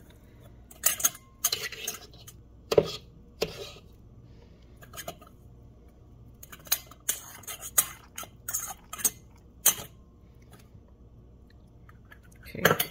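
Irregular clinks and scrapes of a stainless steel canning funnel against a glass jar as marinated eggplant is packed into the jar by hand.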